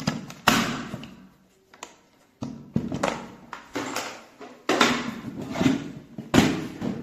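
Parts of a cordless drill kit being handled and set down during unpacking: a run of irregular knocks, clatters and rattles, the loudest about half a second in and again near the end.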